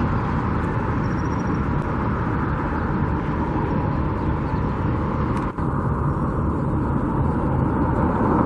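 Steady hum of road traffic, with a brief dip in level about five and a half seconds in.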